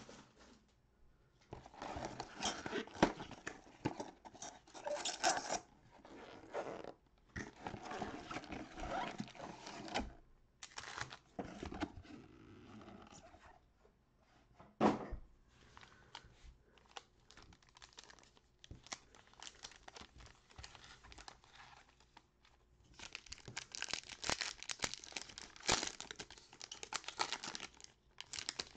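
Crinkling and tearing of Bowman Chrome trading card pack wrappers being opened by gloved hands, in bursts with short pauses between, densest near the end. One sharp knock about halfway through.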